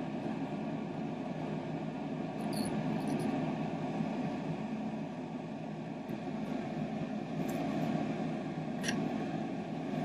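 Steady low background hum, with a few faint small clicks from handling the cable and plug.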